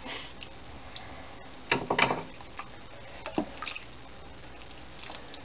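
A spoon scooping tender braised beef and its juices out of a slow cooker's crock: a few scattered light clicks and knocks, with a small cluster about two seconds in.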